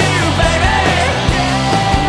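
Rock song with a sung vocal line over drums.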